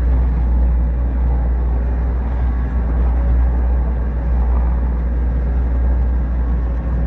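150 hp outboard motor running steadily as a low rumble, with water rushing past the hull.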